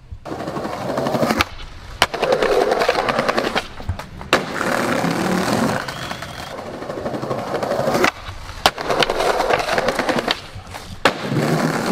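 Skateboard wheels rolling over concrete paving, with several sharp clacks of the board's wood and trucks hitting the ground as the skater pops and lands.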